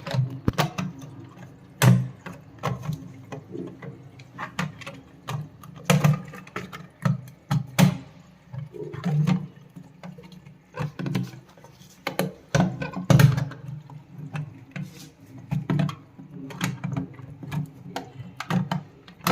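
Irregular clicks, taps and knocks of hand work on a concealed flush cistern's fittings, with parts being handled and fitted, over a steady low hum.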